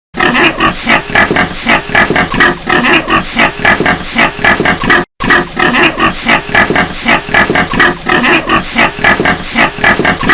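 Several pigs in a sty grunting and squealing in a dense, unbroken chorus. The sound cuts out for an instant about halfway through.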